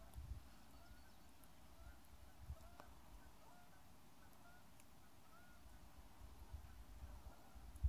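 Faint, distant honking of a flock of geese, many short calls scattered throughout. Low rumbles on the microphone sit underneath, the loudest near the end.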